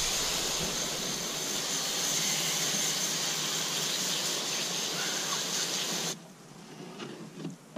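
Garden hose pistol spray nozzle spraying a fine jet of water over a piece of raw chicken: a steady hiss that cuts off sharply about six seconds in.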